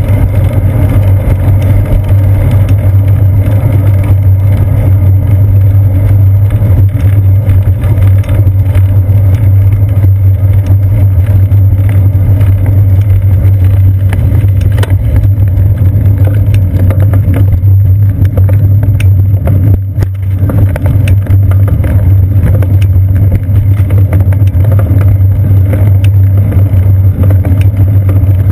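Loud, constant low rumble of a seat-post-mounted action camera being shaken by a moving bicycle: road vibration through the mount and wind on the housing, with scattered small ticks from bumps and joints in the path. The rumble dips briefly about twenty seconds in.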